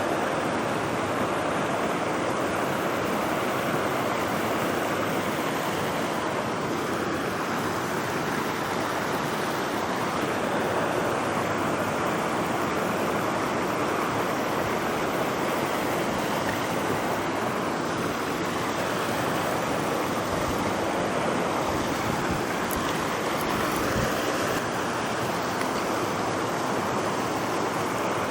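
Mountain stream rushing steadily over rocks and small waterfalls, a constant even rush of water.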